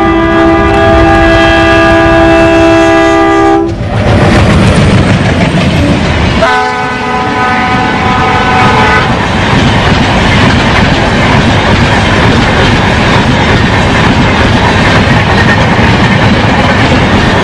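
ALCo diesel locomotive sounding its air horn in two long blasts: the first runs about four seconds, the second starts about six seconds in and lasts about two and a half. The loud, steady rumble and clatter of the passing train on the rails runs underneath throughout.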